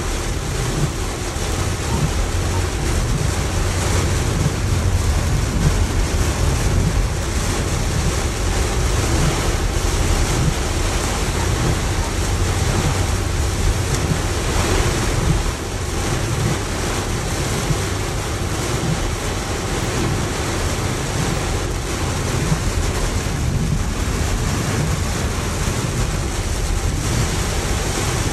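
Rain on a car's roof and windshield heard from inside the cabin: a steady dense hiss with a low rumble underneath.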